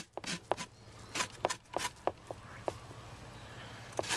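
A scraper being drawn over an algae scrubber screen to strip off the algae growth, giving a string of short, sharp scrapes and clicks, several a second, that trail off into a faint hiss about two-thirds of the way through.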